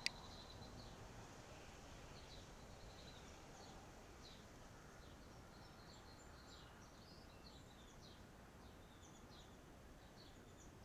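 Faint birdsong: scattered short, high chirps from small birds over a low background hiss, with a single sharp click at the very start.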